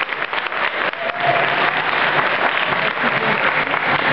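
Audience applauding, with voices and a short call rising over the clapping from about a second in.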